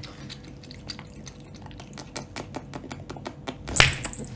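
A run of light, irregular clicks and taps, about three or four a second. Near the end comes one louder sharp sound with a brief high squeak.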